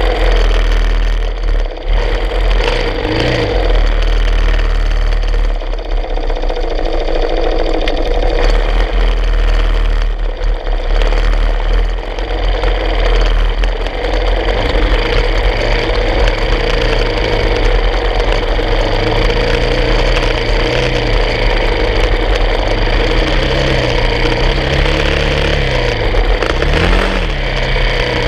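Motorcycle engine running at low speed as the bike rolls along, other bikes' engines running nearby at the start. Near the end the revs rise and fall a few times.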